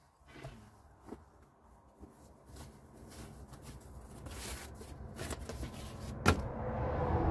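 Cotton pillowcase rustling and crinkling as it is worked over a pillow by hand, with small handling clicks and one sharp click about six seconds in.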